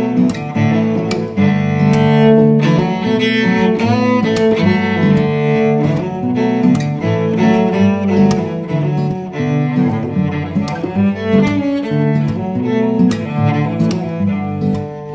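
Instrumental break of an indie folk song: a bowed cello melody over acoustic guitar.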